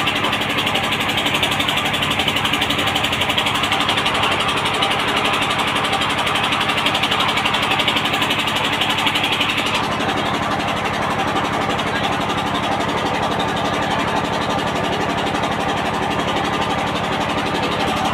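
A steady engine-like hum running without a break, under a constant hiss; the higher part of the hiss drops off about ten seconds in.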